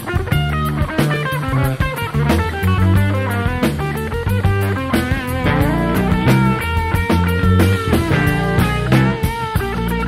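Jazz-funk trio of electric guitar, electric bass and drum kit playing: the guitar runs a melodic line with bent notes over a busy electric bass line and steady drums.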